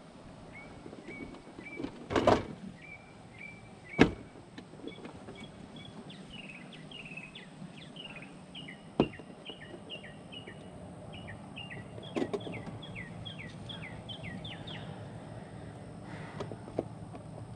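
Scattered hard plastic knocks and clicks as things are handled in a utility vehicle's plastic cargo bed, the loudest about two and four seconds in. Behind them a bird sings a long string of short chirps that turn into quick descending notes.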